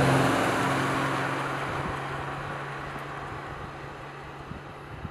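Jeep Gladiator Mojave pickup driving past on a paved road: a steady engine hum with tyre noise, loudest at the start and then fading steadily as the truck moves away.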